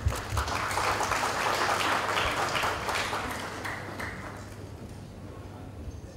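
Audience applause, swelling in the first second and dying away after about four seconds.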